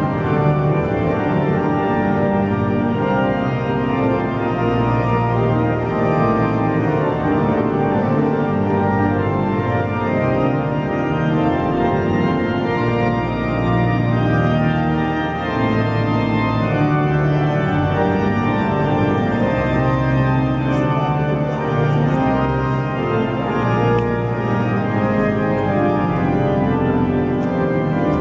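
Organ music: slow, sustained chords held and changing every second or two, at a steady level.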